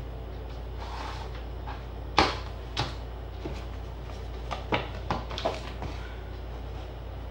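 Hands handling a smartphone and its cardboard retail box on a table, over a steady low hum. There is a sharp knock about two seconds in, a lighter one just after, and a run of small taps and clicks a little past the middle.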